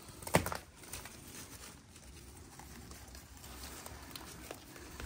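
Footsteps and rustling in dry leaves, twigs and brush, with one sharp crack about a third of a second in and a few lighter clicks after.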